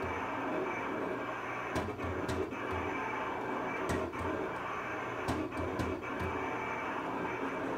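Cutting plotter running, its carriage motors whirring as the blade head traces a family-crest outline into a sheet. Several sharp clicks are spaced a second or more apart.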